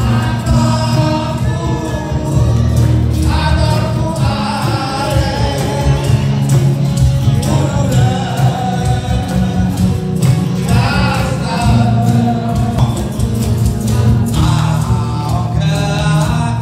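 A band playing with a lead singer: a sung melody over a strong, steady bass line and a regular drum beat.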